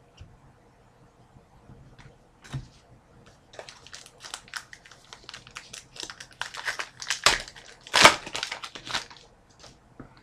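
Upper Deck Goodwin Champions trading-card pack wrapper being torn open and crinkled: a dense run of crackles, loudest about eight seconds in. It is preceded by a single soft knock.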